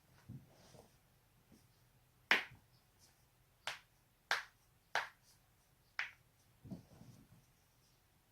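Human joints cracking: a series of separate sharp pops, about six in a few seconds, the loudest about two seconds in and a duller one near the end.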